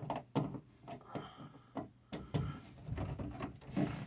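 Irregular clicks and knocks of a screwdriver and a wired outlet receptacle being handled while the bare copper ground screw is checked for tightness.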